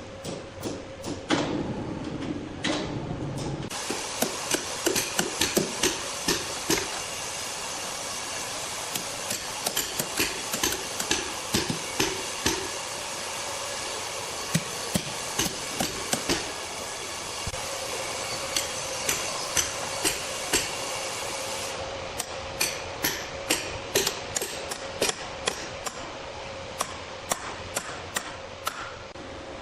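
Many sharp knocks in an irregular run, often several a second. A steady machine noise sets in about four seconds in and stops a little past the middle.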